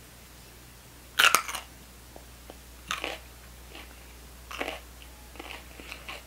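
Jalapeño pepper bitten with a loud crunch about a second in, then chewed with a few softer crunches.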